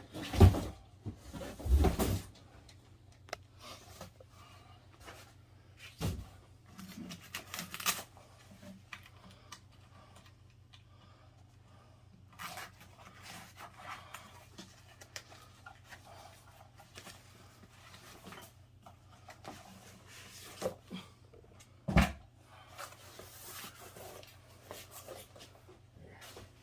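Packaging being handled during an unboxing: cardboard and foam rustling and scraping, with a few heavy thumps, two in the first couple of seconds, one about six seconds in and one about twenty-two seconds in.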